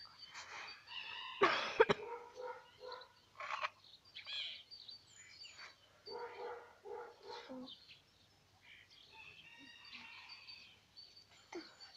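Scattered short animal calls, a dog barking among them, loudest about a second and a half in, with birds calling.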